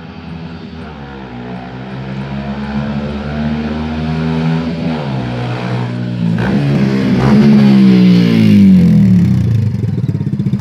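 Single-cylinder motorcycle engine revving as the bike approaches, growing steadily louder, its pitch climbing and dropping back several times as it goes up through the gears. Near the end the revs fall away and it settles into an even pulsing idle.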